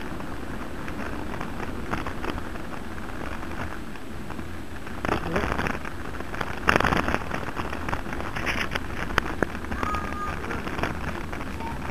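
Bicycle rolling over paved streets: steady tyre and road noise with scattered clattering rattles and knocks from bumps, loudest about five and seven seconds in.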